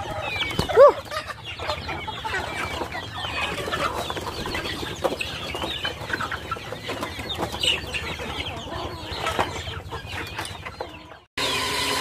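A flock of chickens clucking. There is one louder, rising-and-falling call about a second in, then a continuous jumble of short calls. The sound breaks off abruptly near the end.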